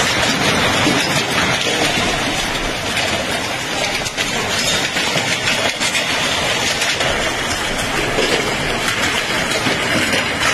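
Heavy hail falling: a dense, steady clatter of many hailstones striking the ground and hard surfaces, thick with small individual hits.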